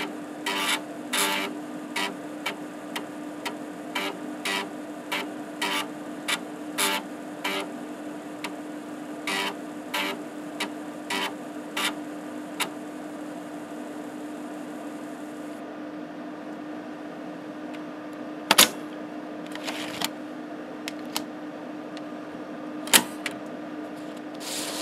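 5.25-inch drive of an Epson SD-800 floppy unit running a random verify: the head stepper seeks to random tracks in irregular sharp clicks, about one or two a second, over a steady hum. The seeking stops about halfway and a high hiss cuts off a few seconds later. Two loud single clicks follow, and the diskette rasps as it slides out of the slot at the very end.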